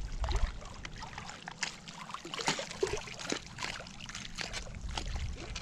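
Light, irregular splashing and trickling of lake water at the shoreline.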